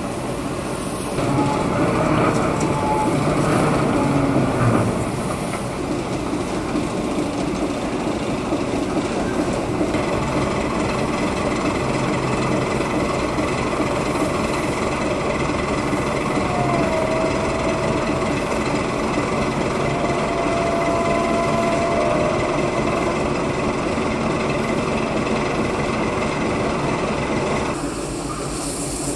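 A locomotive moving slowly over yard track while shunting: a steady mechanical rumble that swells louder in the first few seconds, with brief wheel squeals against the rail around the middle.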